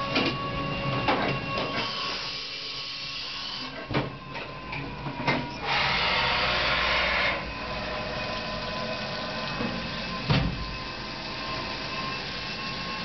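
Fadal CNC machining centre drilling keeper bars with a TiCN-coated drill under flood coolant: a steady spindle whine with scattered sharp knocks. About six seconds in, a loud hissing rush lasts roughly a second and a half.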